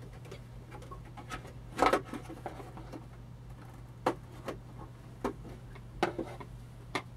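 Handling noises: a few separate clicks and knocks, the loudest about two seconds in, over a steady low electrical hum.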